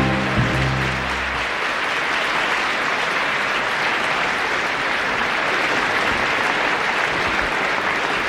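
A pop-symphony orchestra holds its final chord, which ends about a second and a half in. A large concert-hall audience then applauds steadily.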